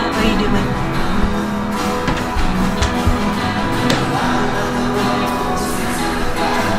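Background music: a song with guitar and singing.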